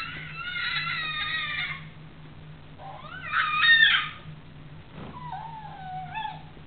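Baby's high-pitched squealing babble in three bouts, the loudest about three to four seconds in.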